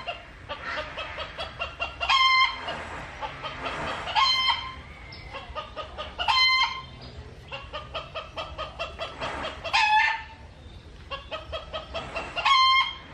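A chicken cackling: runs of quick clucks, about four a second, each ending in a louder drawn-out squawk, five times over.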